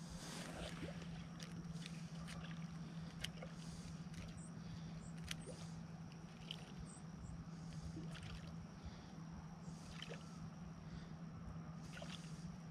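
Faint handling noise of a spinning reel being cranked to retrieve a topwater lure: scattered light clicks and ticks over a steady low hum.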